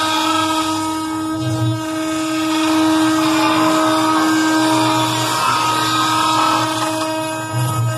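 CNC router spindle running with a steady high whine while its end mill cuts a narrow slot in a wooden table blank, the cutting noise rising and falling slightly about a second and a half in and again near the end.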